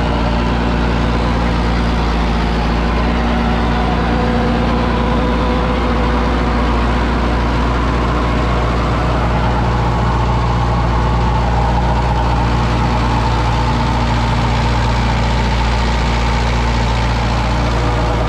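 Tractor diesel engine running steadily under load while pulling a rotary tiller whose blades churn the soil, heard from close beside the machine.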